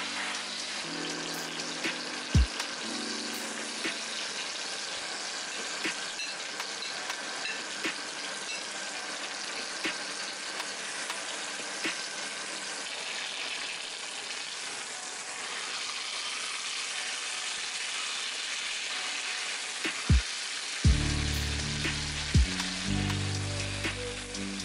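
Steak with garlic cloves and rosemary frying in a cast-iron skillet over medium-low heat, a steady sizzle with small spits and pops of fat. Soft background music with low notes and a beat plays under it in the first few seconds and again near the end.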